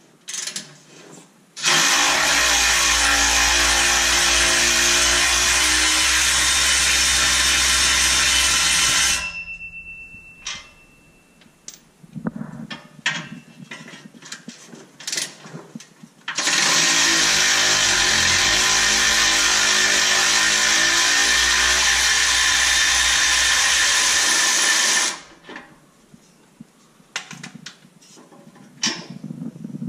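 A cordless power tool runs twice on the stock exhaust's bolts, each run lasting about seven to eight seconds and winding down as it stops. Clicks and knocks of tools on metal fall between the runs and near the end.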